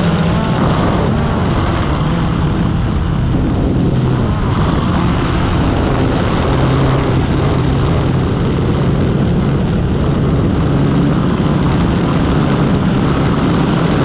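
Propeller aircraft engine running steadily in cruise, a constant drone mixed with rushing noise, heard from on board.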